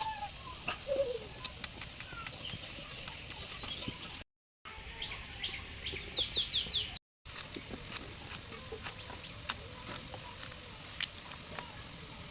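Birds chirping, with a quick run of short falling notes near the middle, over scattered light clicks and a steady high hiss.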